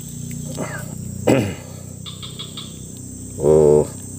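Steady high-pitched insect noise, like crickets. About a second in there is a short falling pitched sound, and near the end a louder, wavering pitched sound lasts about half a second.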